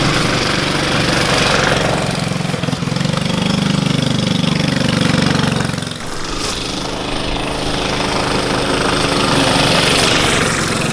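Tillotson 212 single-cylinder small engine running, revving up a few seconds in and dropping back off the throttle around six seconds, then running steadily again.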